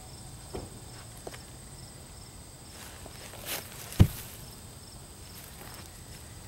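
Split oak being handled: two light knocks, a brushing sound, then one heavy thud about four seconds in as a piece of oak is dropped. Insects chirp steadily in the background.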